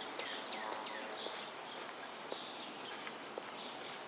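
Birds chirping in the open air, a steady run of short, quick downward-sweeping notes repeated over and over above a soft outdoor hiss, with a couple of light taps partway through.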